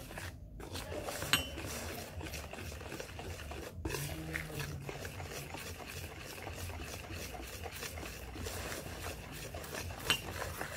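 Wire whisk beating cake batter in a plastic basin: continuous quick scraping and stirring, with two sharper clicks, about a second in and near the end.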